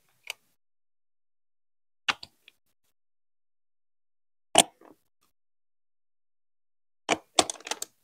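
Large plastic Duplo-style building bricks being set and pressed onto each other: a few isolated sharp clicks with silence between them, and a quick run of clicks near the end.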